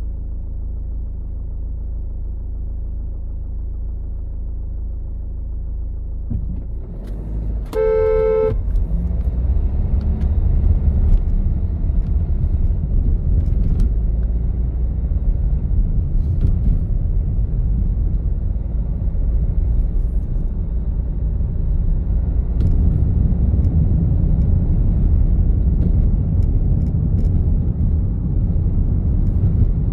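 Traffic noise of a car driving among trucks: a steady low rumble that grows louder and rougher about seven seconds in. A vehicle horn sounds once, briefly, about eight seconds in.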